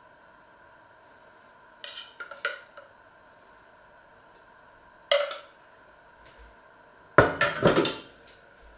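Metal spoon clinking and scraping against a metal cooking pot and a china plate while serving out cooked grain: a few clinks about two seconds in, one sharp clink about halfway, and the loudest clatter of metal near the end.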